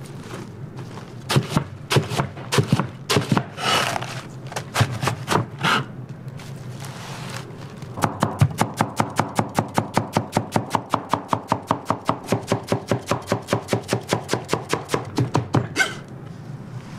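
A kitchen knife chopping on a cutting board: scattered cuts at first, then from about halfway a steady, fast run of strokes at about four a second.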